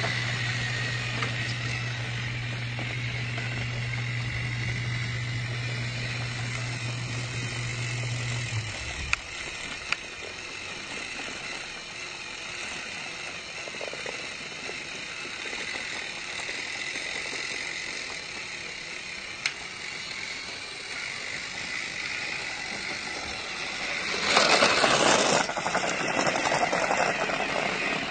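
A small motor hums steadily and stops about nine seconds in. A few sharp clicks follow, and a louder noisy rattle lasting about a second and a half comes near the end.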